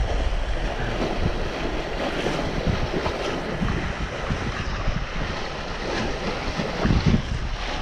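Wind buffeting the microphone over the rush and slap of choppy water against a small sailing boat's hull as it sails along, with heavier gusts near the end.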